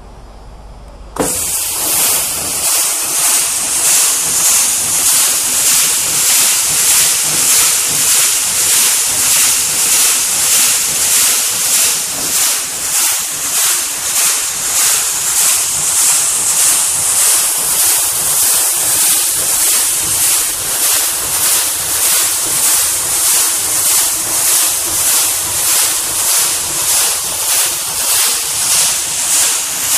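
Stainless steel paddle mixer running loaded with test product: a loud rushing hiss of product being churned, pulsing evenly a little faster than once a second with the paddles. It cuts in suddenly about a second in, after a low hum.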